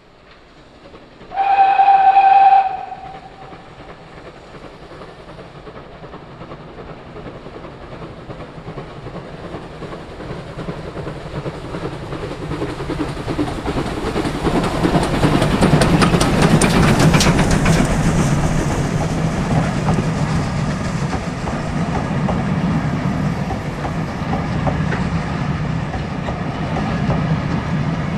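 GWR pannier tank No. 1369 sounds one short whistle about a second in. Its train then approaches, the rumble growing louder to a peak as the engine passes a little past halfway, followed by the steady roll of the coaches' wheels on the rails.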